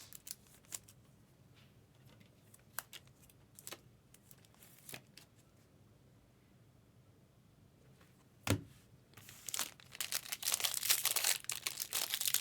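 Trading cards being handled with a few light clicks, a knock about eight and a half seconds in, then a foil card-pack wrapper crinkling and tearing as a pack of baseball cards is ripped open.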